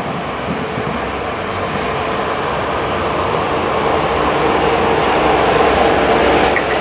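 An Ecco Rail 3E/1 electric locomotive hauling a container train approaches along the track, its rumble growing steadily louder. A steady hum comes through in the second half as it nears.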